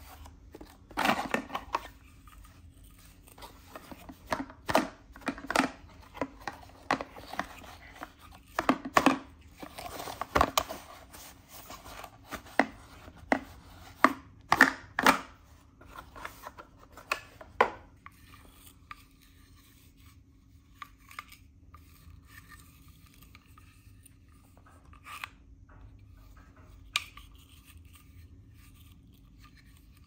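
Cardboard packaging handled by gloved hands: a vacuum accessory is slid and worked out of a white cardboard box, with scraping, rustling and tapping. The handling is busy in the first half and then turns to sparse, occasional taps.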